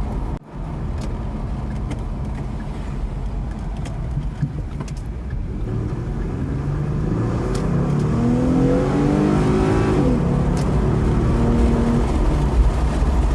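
Ford Mustang engine and road noise while driving, a steady low rumble. From about six seconds in, the engine note climbs in pitch as the car accelerates, falls away sharply about ten seconds in, then runs steady.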